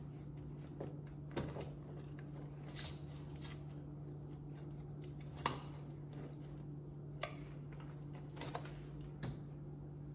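Scattered small metallic clicks and taps from handling and working loose the parts of a Wilesco model steam engine, the sharpest about halfway through, over a steady low hum.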